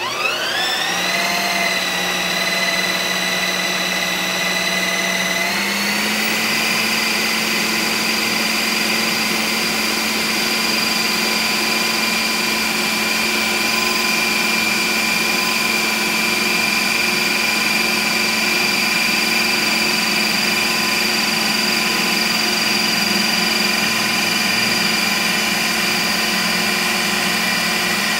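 Ninja Creami ice cream maker's motor starting with a quick rising whine as it spins its blade into a frozen pint of pineapple base. About five seconds in, the pitch steps up and it then holds a steady, loud high whine.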